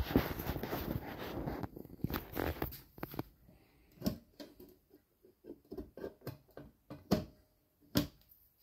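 Rustling handling noise for about the first second, then scattered light clicks and three sharper taps as a finger touches the brass-and-glass case of a Jaeger-LeCoultre Atmos clock.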